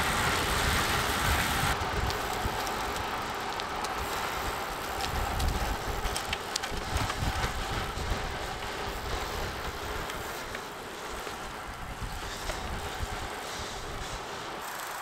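Wind buffeting a moving camera's microphone, with tyre and road rumble, while following a road cyclist at speed. The hiss above thins out about two seconds in.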